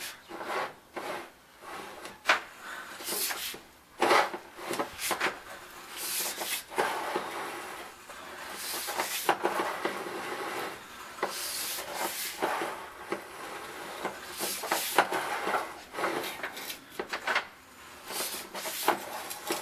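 Sewer inspection camera's push cable being fed through the drain: irregular rubbing and scraping with frequent small knocks.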